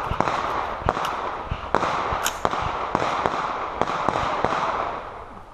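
Rapid, irregular gunfire from several carbines and pistols firing at once, about a dozen sharp shots overlapping, with echo filling the gaps between them.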